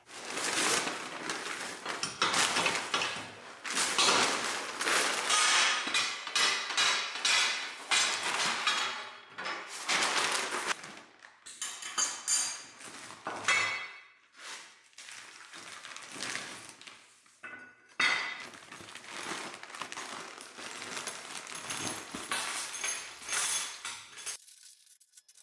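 Metal dethatcher parts clinking and clattering as they are handled and set down: a dense, irregular run of knocks and ringing clinks that stops about a second before the end.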